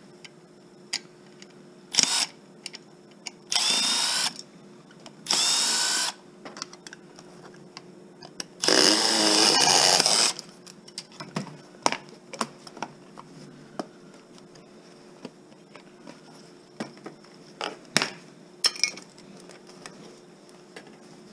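Power drill-driver whirring in four short runs, the longest and loudest about nine seconds in, backing screws out while a TV is taken apart for scrap. Scattered clicks and knocks of parts being handled come between the runs.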